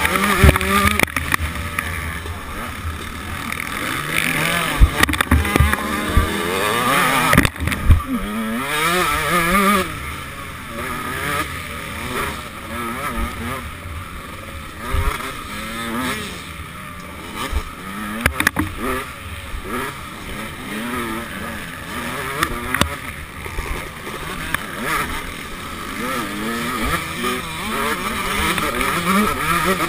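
KTM SX125 125cc two-stroke motocross engine at race speed, its pitch rising and falling again and again as the rider revs and shifts, with low buffeting and occasional knocks from the bumpy track.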